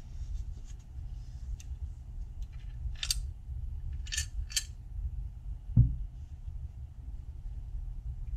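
Rusty cast-iron meat grinder being handled and turned over in the hands: short metallic scrapes and clinks about three and four seconds in, then a dull thump near six seconds, over a steady low hum.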